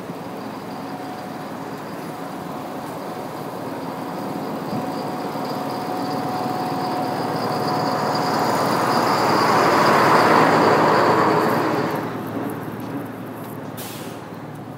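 A motor vehicle driving past on the street, growing steadily louder to its closest point about ten seconds in, then fading quickly.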